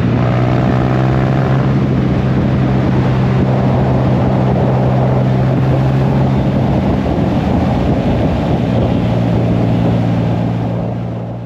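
Motorcycle engine running steadily at cruising speed, with heavy wind and road noise, fading out near the end.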